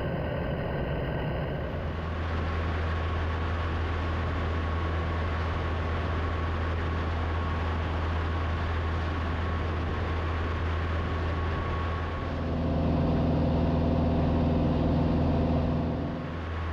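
Single-engine light aircraft's piston engine and propeller droning steadily in cruise flight, a low hum with a faint higher whine over it. About twelve seconds in the drone grows louder with a deeper, fuller hum, then drops back near the end.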